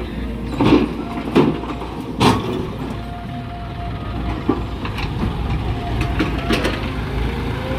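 Diesel engines of an excavator and tractors running steadily, while the excavator bucket dumps soil into a steel tractor trolley: clods crash onto the bed three times in the first two and a half seconds, with a smaller knock later.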